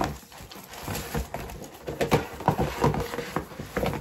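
Cardboard gift box and its paper packaging being opened and handled: irregular rustling with light taps and knocks, busiest in the second half as the bag is lifted out.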